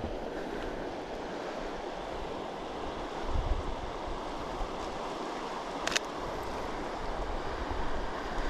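Steady outdoor rush of wind and flowing river water on a GoPro's built-in microphone, with no windscreen. There is a low buffeting swell about three seconds in and a single sharp click near six seconds.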